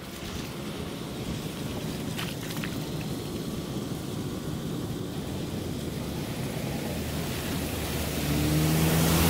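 Steady low rumble, then about eight seconds in a bus engine comes in and grows louder as the bus approaches along the flooded road.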